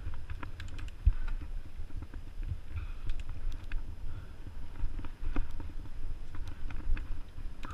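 Mountain bike riding over a dirt trail, heard from the bike: a steady low rumble of wind on the microphone with scattered sharp clicks and rattles from the bike over bumps, and one sharper knock about a second in.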